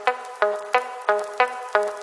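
Background music: a pitched instrument playing short, decaying notes evenly spaced at about three a second.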